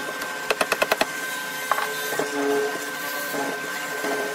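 Bench drilling machine running with a steady motor whine as its bit bores down into a block of wood. About half a second in comes a quick run of about six sharp clicks.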